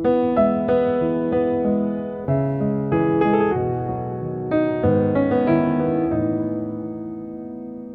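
Background music: a soft, slow piano melody with sustained chords, notes struck in short phrases and fading out near the end.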